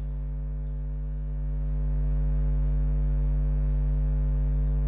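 Steady electrical mains hum: a low buzz with a stack of evenly spaced overtones, growing a little louder about a second and a half in.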